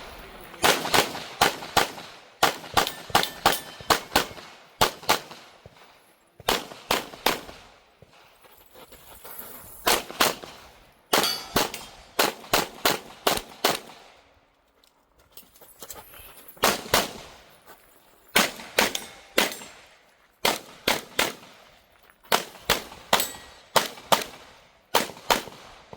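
Grayguns-tuned Sig Sauer P320 pistol fired in rapid strings during a practical-shooting stage: quick pairs and bursts of three or four shots with short pauses between.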